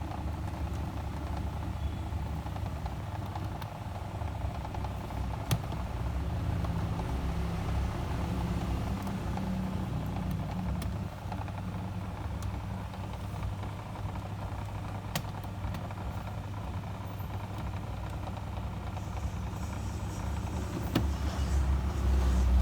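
Steady low rumble of background noise, like an engine running nearby, with a few isolated sharp clicks.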